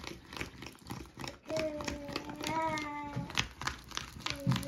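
Spoon stirring slime mixture in a container, giving a run of quick clicks and scrapes. Over it a voice hums a long steady note twice, once about a second and a half in and again near the end.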